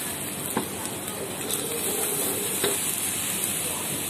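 Egg frying in hot oil in a steel wok, sizzling steadily, with a metal spatula knocking against the wok a few times.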